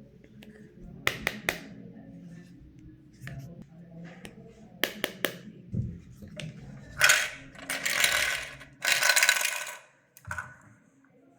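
Toys and their packaging being handled: two quick runs of three sharp clicks, then several longer bursts of rustling from about seven seconds in.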